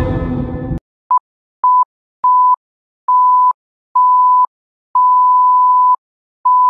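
Percussion music cuts off just under a second in. Then an electronic countdown beep sounds seven times at one steady pitch, each beep longer than the one before, with the last one held long.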